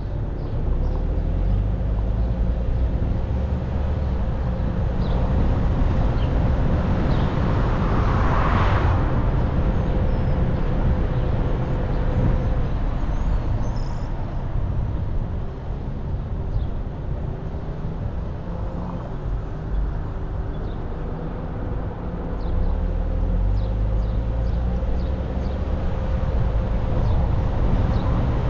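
Car driving slowly on a city street: steady road and tyre noise over a low engine rumble, with a thin steady hum running through much of it. A short rush of noise comes about eight seconds in, and the sound eases a little for a few seconds past the middle.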